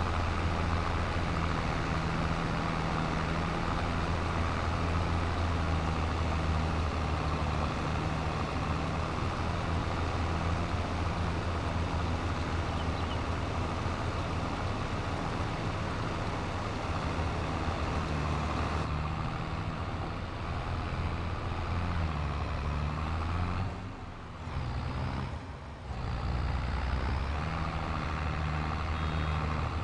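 Massey Ferguson 3690 tractor running steadily while it drives a Vermeer baler baling dry hay. The sound dips briefly about 24 seconds in, and a few short high beeps start near the end.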